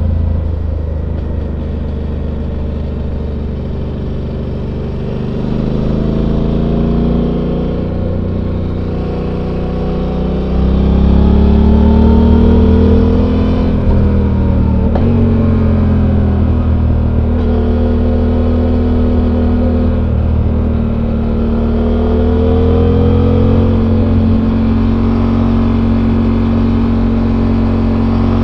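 Suzuki V-Strom 800's stock-exhaust 776 cc parallel-twin engine heard from on board while riding, its pitch rising and falling with the throttle. It gets louder and climbs about a third of the way in, drops sharply about halfway, then runs fairly steady with gentle swells.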